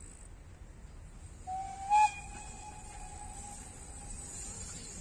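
Steam whistle of an OKz32 steam locomotive sounding one blast: a steady tone that starts about a second and a half in, rises to a loud peak, then trails away over the next two seconds.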